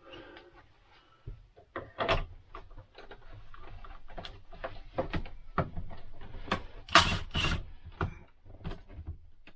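Irregular clicks, knocks and scrapes of parts being handled and pushed into place while fitting a motorhome air conditioner's ceiling ducting, with two louder scrapes about seven seconds in.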